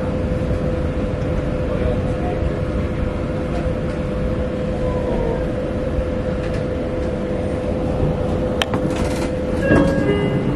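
Meitetsu Seto Line electric train heard from just behind the driver's cab: a steady low rumble with a constant hum. A sharp click comes about eight and a half seconds in, and short tones sound near the end.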